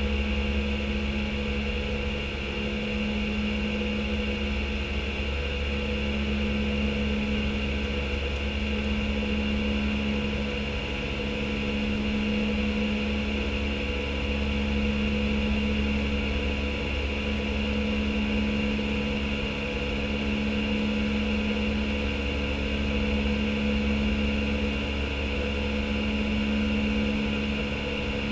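Steady flight-deck noise of an Airbus A319 in flight: a rushing of airflow over a low hum, with a few steady tones. One low tone swells and fades every few seconds.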